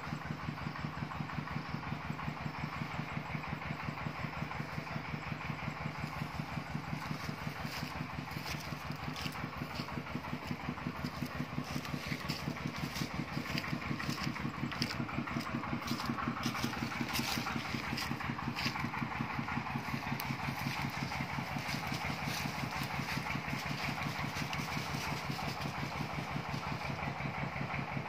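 A small engine running steadily with a rapid, even beat that holds throughout, with some light clicks and rustles in the middle.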